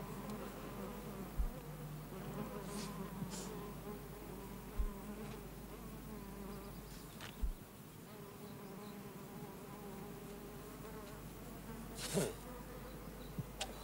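A flying insect buzzing steadily and persistently close by, with three dull low thumps along the way. Near the end comes a brief, louder rustling swish as a hand waves at it.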